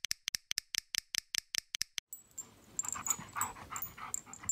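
A run of sharp, evenly spaced clicks, about five a second, stops about two seconds in. A dog is then heard, with irregular small clicks.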